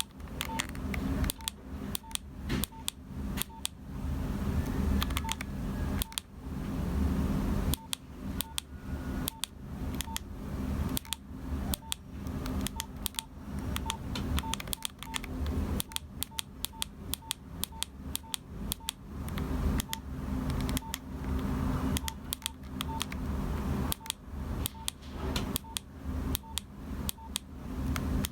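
Nokia 3395 keypad being pressed again and again in runs with short pauses. Each press is a plastic click with a short high beep keypad tone. A steady low hum runs beneath.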